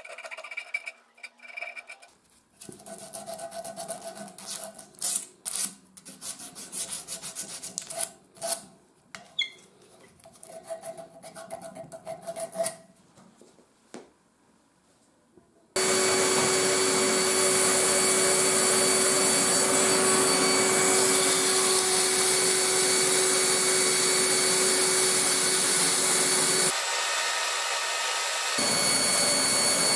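Sandpaper rubbed by hand over a wooden tool handle in irregular rasping strokes, then a short pause. About 16 s in, an electric drill starts and runs steadily with a fixed whine, spinning the handle against sandpaper held to it. The sound drops briefly near the end, then the drill picks up again.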